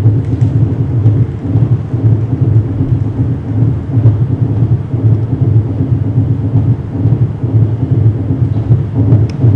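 Loud, steady low rumble with no clear pitch from the performance's collage soundtrack, with a couple of faint clicks near the end.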